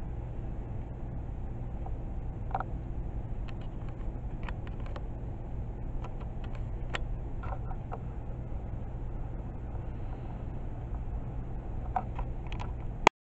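Steady low hum of room tone with scattered faint clicks. Near the end there is one sharp, loud click and a brief dropout to silence where the recording cuts.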